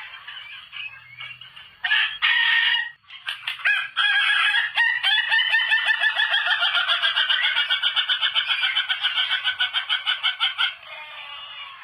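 A rooster calls with a short burst about two seconds in. About four seconds in it starts a long, rapidly pulsing crow that stutters on for roughly six seconds, a call that sounds like laughter.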